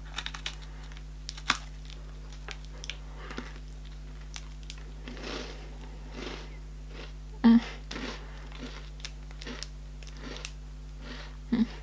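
Crunchy chocolate-filled biscuit bitten and chewed close to the microphone, with crackles from its foil wrapper in the hand; one louder crackle about seven and a half seconds in.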